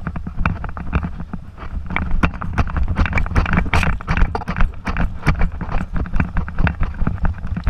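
Rapid, irregular clicking and knocking over a low rumble: a camera rig mounted on a dog's harness jostling and rubbing as the dog walks. The knocking is densest around the middle.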